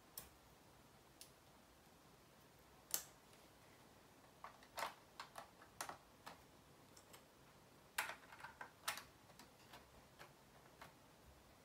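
Plastic Lego pieces clicking as they are handled and pressed together: scattered sharp clicks, with two short flurries in the middle, over a quiet room.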